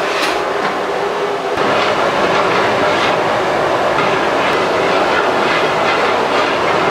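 Loud, steady rushing noise of a busy cookhouse at work, with a few light clatters.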